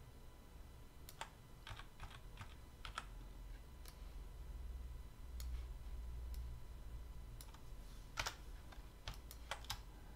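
Computer keyboard keys and mouse buttons clicking at irregular intervals, a dozen or more sharp clicks over a faint low steady hum.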